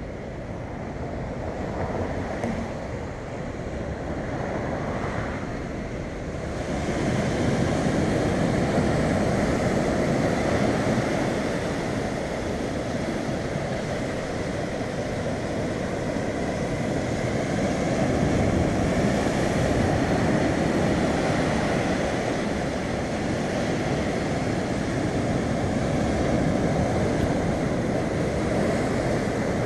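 Ocean surf washing on the shore, with wind on the microphone. It grows louder about six seconds in, then swells and eases.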